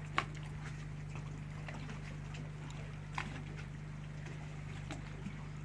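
A boat's engine idling, a steady low hum, with a few light clicks and knocks on board.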